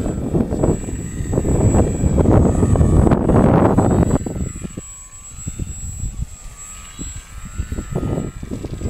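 Strong wind buffeting the microphone, loudest in the first half, over the buzz of a radio-controlled model airplane's motor with its pitch wavering up and down; the motor comes through more clearly when the gusts ease about halfway through.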